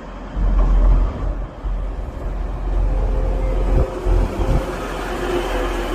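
A train running close by: a heavy low rumble and rushing noise that grows about half a second in, with a steady whine of two tones joining about halfway through.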